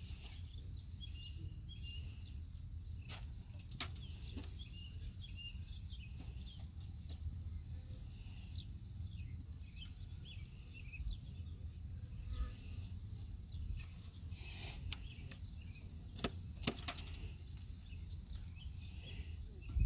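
Steady low rumble with faint bird chirps in the first few seconds and a few sharp clicks scattered through, as wooden hive frames are handled.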